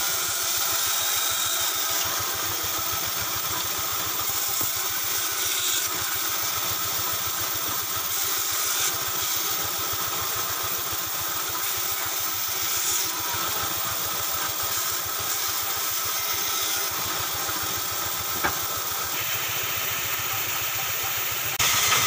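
Band saw running steadily, its blade cutting a curved profile through a thick wooden board.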